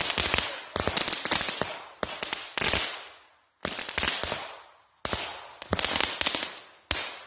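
Consumer fireworks cake firing shot after shot: volleys of sharp pops and crackles about once a second, each trailing off in a fading crackle.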